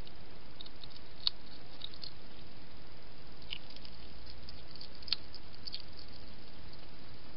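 Steady hiss with faint, scattered small clicks and ticks as a hedgehog walks across paving, and two sharper clicks, about a second in and about five seconds in.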